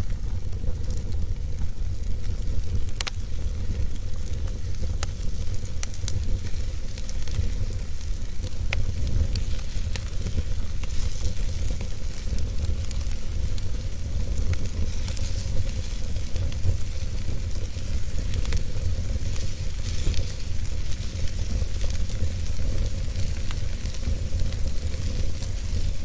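Wood logs burning in a fireplace: a steady hiss and low rumble, with sharp crackles and pops scattered throughout.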